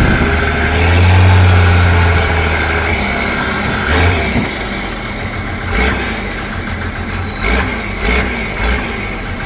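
Army truck engine running, with a strong low drone in the first couple of seconds that eases off and drops in level, as when the truck slows toward idle. In the second half come several irregular short thumps.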